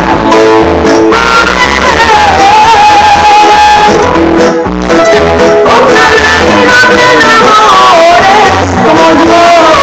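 Loud music through a sound system, with a sung melody gliding over a steady bass beat.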